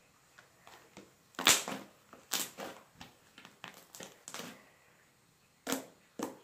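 White homemade slime being squeezed and kneaded by hand, giving a string of short squishes and crackly pops about every half second. The loudest comes about a second and a half in.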